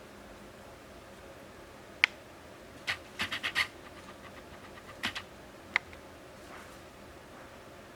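A few sharp clicks and scratchy taps over faint hiss: one about two seconds in, a quick run of five a second later, then three more a little after the middle.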